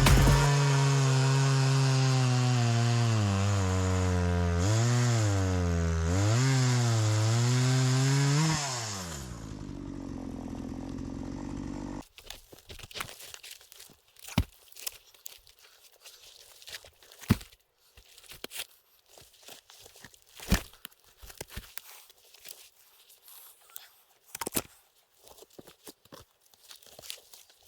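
Two-stroke chainsaw running hard through Sitka spruce, its pitch dipping under load and recovering a couple of times before it drops off about nine seconds in. After that there are only scattered knocks and crunches.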